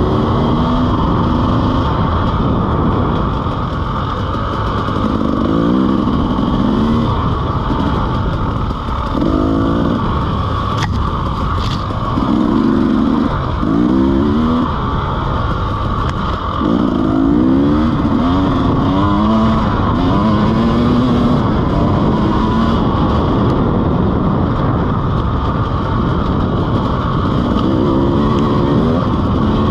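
2017 KTM EXC 300 two-stroke enduro engine under riding load, revving up through and falling back again and again as the throttle is worked. Two sharp clicks sound near the middle.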